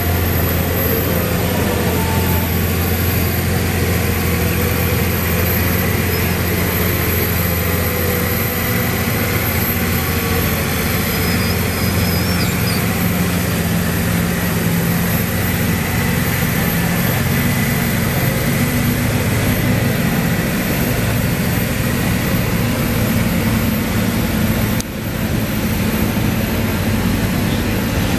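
Valtra farm tractor's diesel engine running hard under heavy load as it drags a tractor-pull weight-transfer sled down the track. It holds a steady, loud note that shifts slightly in pitch about two-thirds of the way through.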